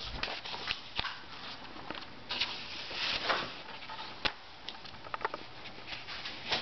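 Paper rustling in short bursts, with a few sharp taps, as old comic books are handled and slid across a table.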